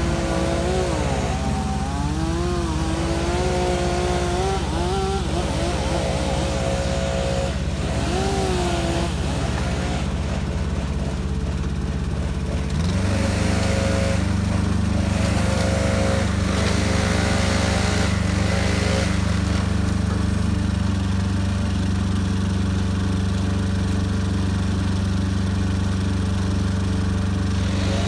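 A truck-mounted knuckle-boom tree crane running: its engine hums steadily under a hydraulic whine that rises and falls in pitch as the boom moves. About halfway through, the engine speeds up and holds a higher, steady pitch.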